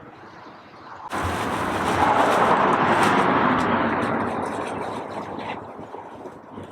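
A motor vehicle passing close by: a noisy rush that comes in suddenly about a second in, swells, then fades away over a few seconds.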